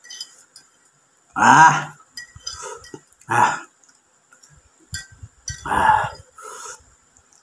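Three short vocal sounds from a man eating spicy noodles, spaced about two seconds apart, with a fork clinking a few times against a ceramic plate.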